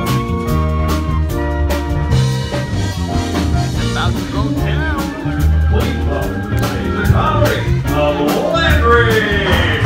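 Live band music: electric keyboard chords over a drum kit keeping a steady beat, with a sliding lead melody joining in about halfway through.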